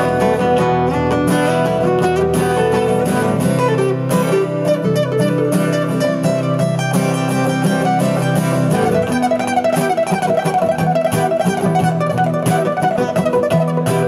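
Two guitars playing an instrumental passage of a song, with many quick plucked notes and no singing.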